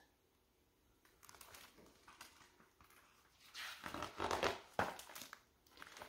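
Pages of a picture book being turned and handled, the paper rustling, loudest about four seconds in.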